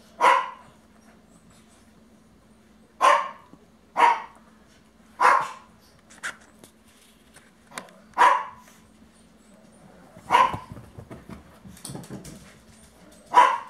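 A small terrier gives about seven short, sharp barks, one at a time, at uneven gaps of one to three seconds, while playing with a plush toy. Fainter scuffling can be heard between the barks.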